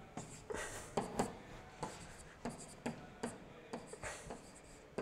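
Stylus writing on an interactive whiteboard: a faint series of short scratches and taps, a couple of strokes a second, as characters are written out by hand.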